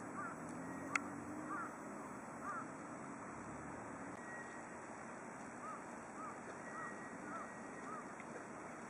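Vega gull calling with short, arched yelps: a few scattered in the first seconds, then a run of five at about two a second near the end, fairly faint over a steady background hiss. A single sharp click about a second in.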